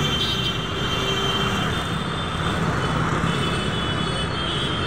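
Steady noise of road traffic, with a faint high tone coming and going.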